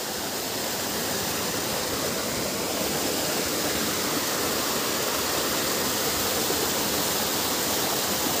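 A steady rush of running water, with no pauses or separate splashes.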